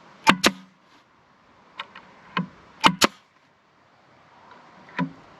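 Nails being driven into wooden boards: sharp, loud shots, mostly in close pairs about every two and a half seconds, with a few lighter knocks between.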